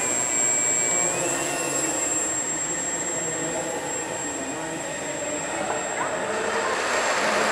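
Small electric motor and propeller of a 61 g Micro Yak EPP indoor RC airplane running as it is launched and flown. It makes a thin, steady high whine, with a fainter tone that steps up slightly about a second in.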